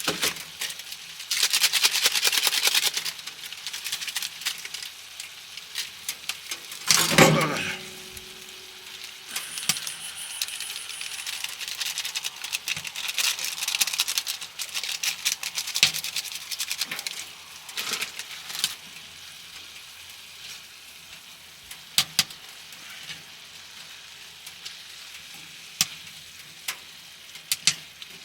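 Food sizzling and frying in a hot pan, with stirring, a loud burst of hissing about seven seconds in, and scattered sharp clicks and clinks of utensils.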